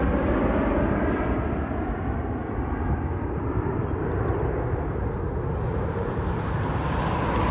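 Boeing 777's twin turbofan engines on final approach, a steady low rumble with its pitch sliding slightly down as the jet flies away.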